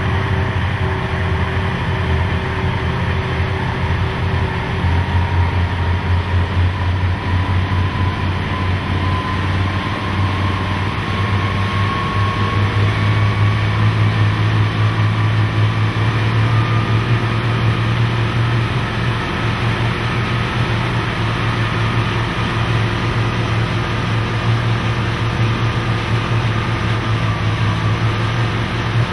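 The flathead-six inboard engine of a 1939 Gar Wood runabout running at cruising speed, a steady low drone whose pitch shifts slightly now and then, over the rush of the hull through the water.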